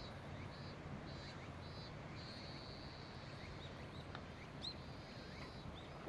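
Faint outdoor ambience: a low steady background hiss with a high, thin buzz that comes in short pulses and then longer stretches, plus a few brief high chirps, typical of insects and birds in the trees.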